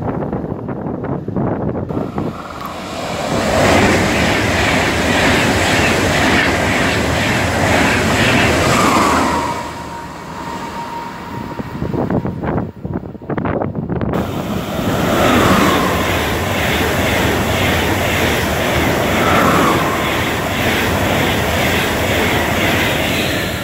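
ICE high-speed trains and other fast trains passing through a station one after another: a loud rush of wheels on rail and rushing air. Short falling whines sound as trains go by, about a third of the way in and twice more in the second half.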